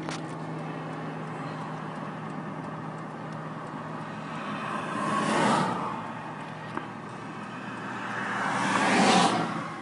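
Steady road and engine noise heard inside a moving car's cabin, with a low hum underneath. Two louder rushing swells build and fade, one about halfway through and one near the end.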